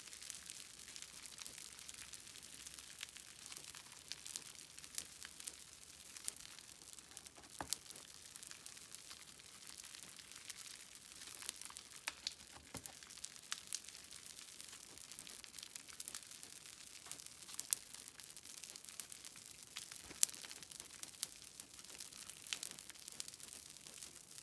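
Slime being squeezed and stretched by hand: a steady, soft crackle with many small sharp clicks and pops.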